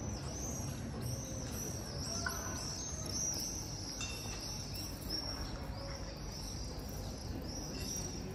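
A flock of swifts screaming in flight: many short, high-pitched calls overlapping one another, over a low steady hum of street noise.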